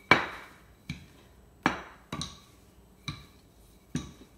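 Wooden rolling pin knocking on a countertop as biscuit dough is rolled out: six sharp knocks less than a second apart, the first the loudest.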